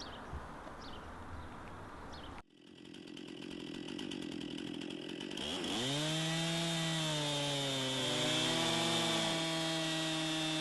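A few short bird chirps over quiet outdoor ambience, then a sudden break. After it a chainsaw runs, building up over a few seconds and then holding a steady pitch that shifts a little as it works the wood.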